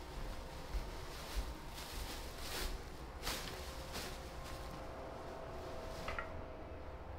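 Clear plastic dry-cleaning bag over a dress crinkling as it is handled, a few short rustles about two to four seconds in, over a faint steady hum.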